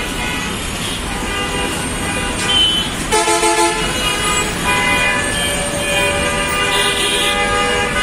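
Many vehicle horns honking over one another in gridlocked city traffic, over a steady rumble of traffic. One louder, lower horn sounds about three seconds in, and several horns hold steady tones near the end.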